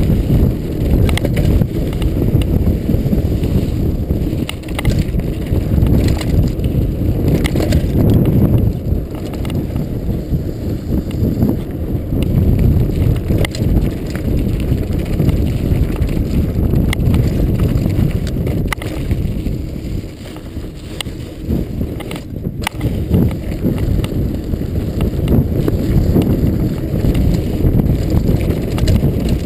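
Norco Storm hardtail mountain bike running fast down a dirt trail: a steady low rumble of knobby tyres and wind on the microphone, with scattered clicks and rattles from the bike over small bumps. The rumble eases briefly about two-thirds of the way through.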